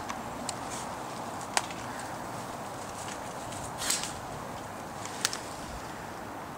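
Steady outdoor hiss with a few isolated sharp cracks: one about a second and a half in and a quick double crack a little after five seconds. A short rustle comes just before four seconds.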